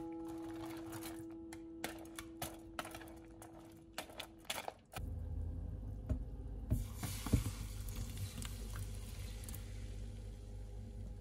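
Wire whisk clicking irregularly against a plastic mixing bowl as eggs and diced potato are beaten. About halfway through, the mixture is poured into hot oil in a frying pan and sizzles, with a few knocks of the bowl against the pan.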